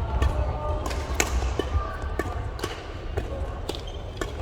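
Badminton play on an indoor court: sharp hits and thuds at irregular intervals, with short shoe squeaks on the court floor over a low hall rumble.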